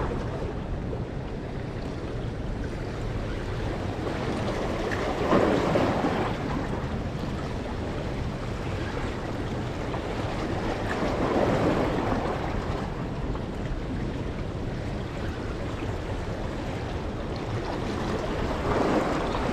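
Waves washing against rocky shore boulders, surging three times, about six seconds apart, over a steady rush of wind on the microphone.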